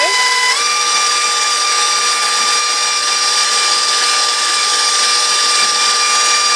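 Stand mixer motor running steadily with its wire whisk beating mashed potatoes in a steel bowl; the whine steps up slightly in pitch about half a second in.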